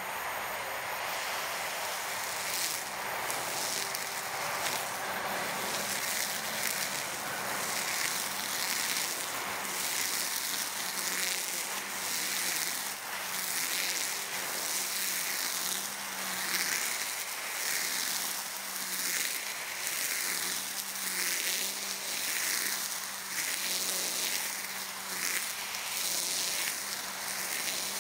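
EGO POWER+ cordless brush cutter running at speed, its motor whining steadily while the cutting head swishes through tall grass in side-to-side sweeps a little over a second apart.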